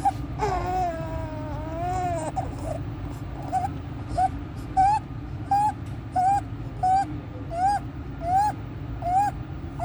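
A newborn baby cries briefly, then makes a short sound rising in pitch with each rapid breath, about one and a half a second. This is inspiratory stridor, the sign of an obstructed upper airway.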